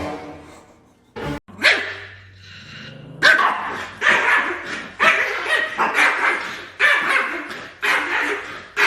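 A dog barking repeatedly, about one bark a second, over a faint steady hum.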